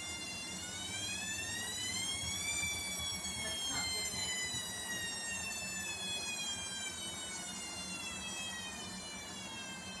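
Bosch Series 4 WAK28261GB washing machine's drum motor whining as the drum speeds up. The pitch rises for about two and a half seconds, then slowly sinks as the drum drops back instead of going into a full spin, the machine's fault of being unable to spin.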